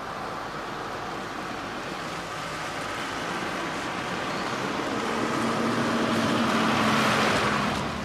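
A motor vehicle on a road, its noise growing steadily louder as it approaches, then dropping away near the end.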